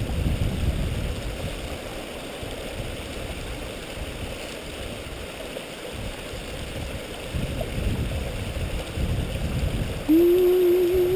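A stream running steadily, with low wind rumble on the microphone. About ten seconds in, a person's voice comes in on a held, slightly wavering note.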